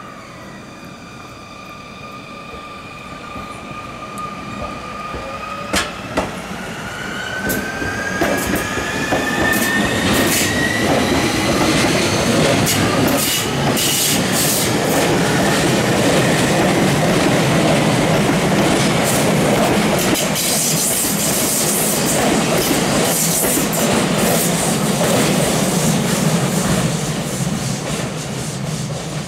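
A Sotetsu navy-blue electric commuter train going by close at hand. Its motor whine rises in pitch as it gathers speed, then comes a loud rush of the train passing, with wheels clicking over rail joints. The rush eases off near the end.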